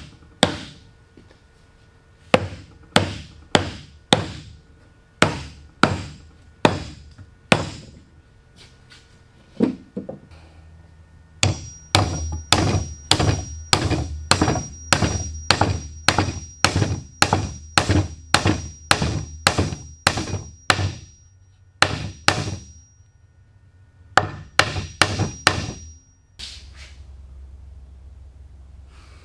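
Hammer blows in a woodworking shop: a string of single strikes about two-thirds of a second apart, then a fast run of about two blows a second, then a few more near the end.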